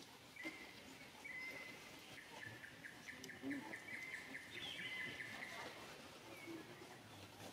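A high-pitched chirping trill from a small wild animal in the background. It starts about half a second in, becomes a run of rapid pulses and stops about two seconds before the end, with a few faint clicks and ticks around it.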